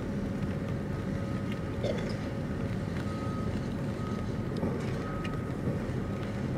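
Steady low engine rumble from a tug and a large cargo ship passing close, with a faint high beep repeating about once a second, like a reversing alarm.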